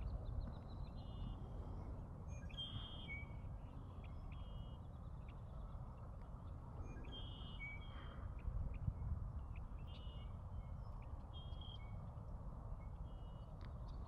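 Male red-winged blackbird calling and singing in its territorial display: short, clear notes repeated every second or two, over a low steady rumble.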